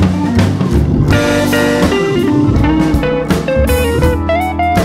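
Background music: a guitar-led track with a drum beat and bass.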